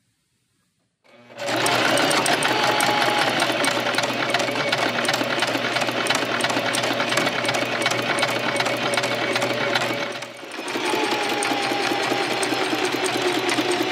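Electric domestic sewing machine stitching a seam at a steady fast speed. It starts about a second in, stops briefly near ten seconds, then runs again.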